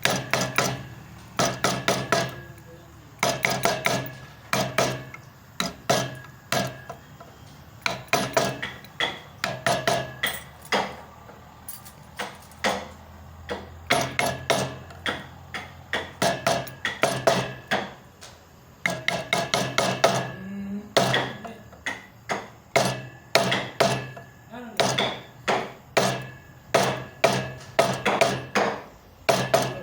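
Hammer tapping a carving chisel into wood, in runs of quick taps several a second with short pauses between.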